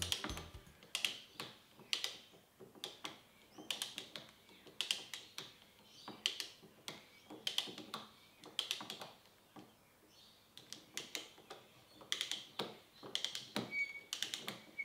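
Wooden toy socket wrench ratcheting: its wooden pawl clicks over the wooden cog in short runs of light clicks, repeated every second or so.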